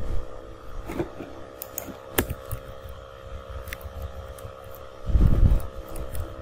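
Scattered computer keyboard and mouse clicks over a steady low hum, with a brief low rumble about five seconds in.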